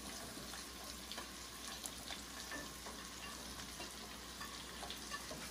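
Carrot pieces frying in hot mustard oil with ground spices: a steady sizzle, with small scattered clicks and scrapes of a ladle stirring them in the pan.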